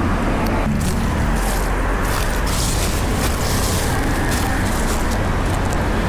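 Steady road traffic noise, with footsteps crunching through dry leaves and grass starting about a second in.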